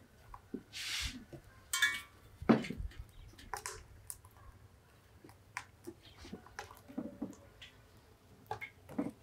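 Hands shaping soft balls of dough, with squishing and patting, among scattered light taps and knocks as the balls are set into a metal bowl on a wooden table; one louder thump about two and a half seconds in.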